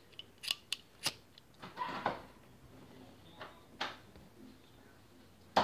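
A lighter being struck: several sharp clicks and a short rasping scrape about two seconds in, with a louder knock at the very end.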